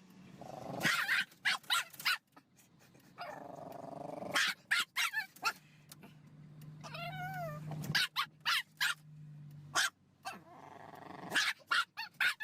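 Chihuahua barking and snapping in many short sharp bursts, with a low steady growl through the middle and a brief wavering yip about seven seconds in.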